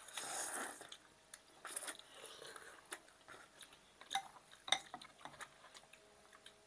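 Noodle soup being slurped, a long slurp at the start and a shorter one about two seconds in, with forks and spoons clinking against the bowls a few times near the middle.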